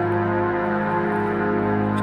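Background music: slow, sustained ambient synthesizer chords held steadily.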